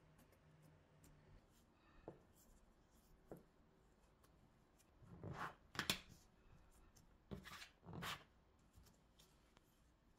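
Faint handling sounds of gloved hands working soft bread dough on a smooth work surface: a couple of light taps, then two pairs of soft rubbing swishes in the second half.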